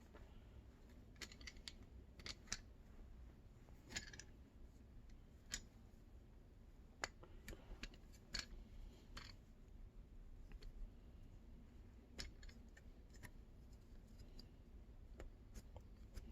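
Faint, irregular clicks and taps of small computer parts and screws being handled and fitted, about a dozen scattered sharp ticks over a low background hum.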